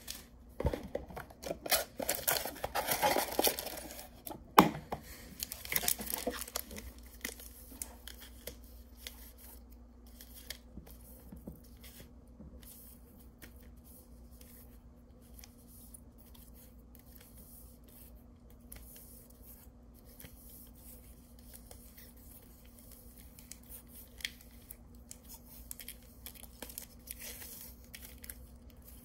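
Foil Pokémon booster-pack wrappers crinkling and rustling as they are handled, with a stretch of loud, dense crinkling and ripping in the first several seconds and a sharp click in the middle of it. After that come only soft, scattered rustles and small clicks.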